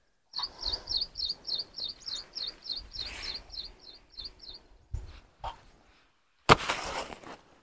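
A bird repeating one short, high chirping note about fifteen times, roughly four a second, for some four seconds. About six and a half seconds in comes a short burst of rustling noise.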